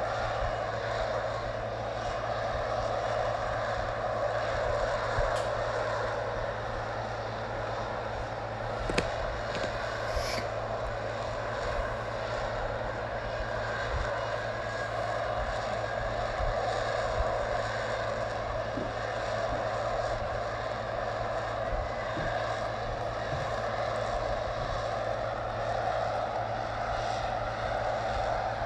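Lockheed Martin F-35B's Pratt & Whitney F135 jet engine and shaft-driven lift fan running steadily as the jet hovers in short-takeoff/vertical-landing mode; a continuous, even jet noise.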